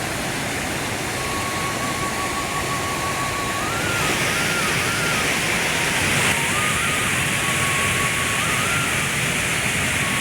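Steady rushing water, a little louder from about four seconds in, with a faint high tune of a few held notes moving up and down over it.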